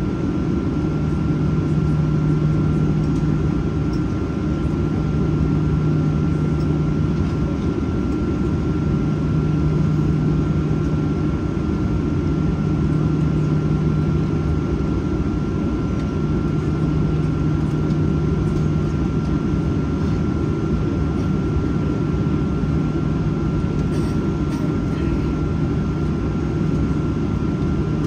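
Steady cabin noise inside a Boeing 737-800 with its engines at idle before takeoff: a low rumble under a steady high-pitched whine, with a low hum that drops out briefly now and then.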